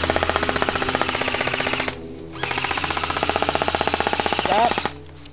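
Airsoft rifle firing on full auto: a rapid, even rattle of shots in two long bursts, the first breaking off about two seconds in and the second starting half a second later and stopping near the end.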